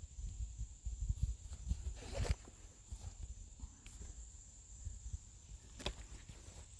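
Wind rumbling on the microphone with a few faint knocks and a thin, steady high whine; no gunfire.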